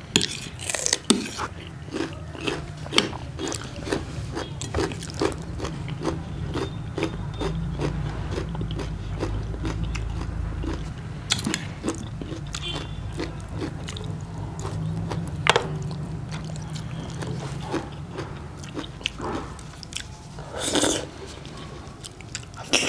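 Close-miked chewing and biting of people eating, a steady run of moist chews about two a second with a few sharper clicks and crunches.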